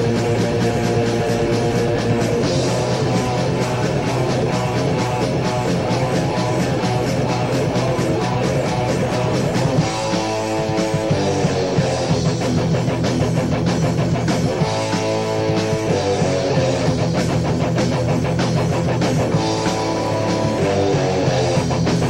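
Heavy metal band playing on a 1987 demo tape recording: electric guitars and drums at a steady beat, the riff changing a few times.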